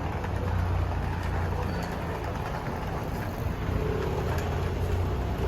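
Steady low rumble of outdoor street ambience, like traffic.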